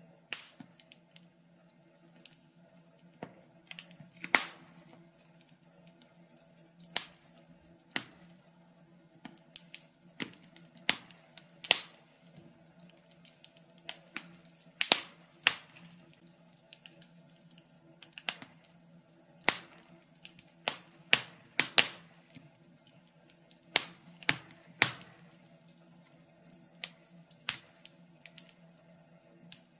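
Logs burning in a fireplace, crackling with irregular sharp pops and snaps, some much louder than others.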